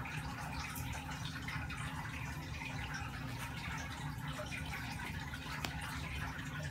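Steady low background hum with faint soft handling sounds of a cotton sock being pulled onto a doll's foot, and one small click near the end.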